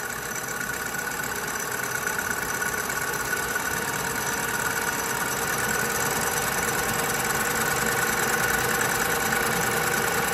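Colchester Student variable-speed lathe running while facing a large metal disc, with a steady whine from the machine that grows slowly louder. The spindle speed is being wound up as the tool moves in toward the centre, to hold a surface speed of about 200 to 250 metres a minute for a good finish.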